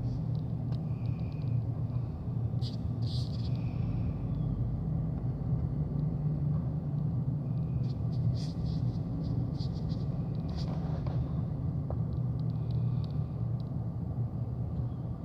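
Steady low rumble of a moving vehicle heard from inside, with light clicks and rattles scattered through it.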